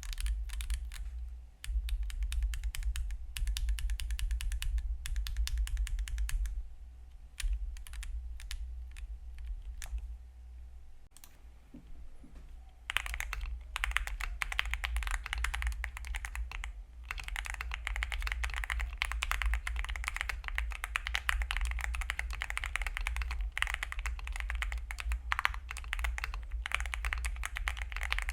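Rapid typing on a Wind X98 mechanical keyboard with stock Gateron Azure Dragon switches and PBT keycaps. The case is first empty of foam; then, after a brief lull partway through, typing resumes with the keyboard fully foamed and sounds louder and more even.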